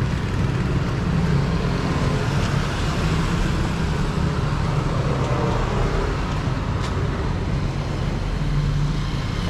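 Steady street traffic: motorcycle and car engines running and passing by on a city road close by, with a constant low rumble.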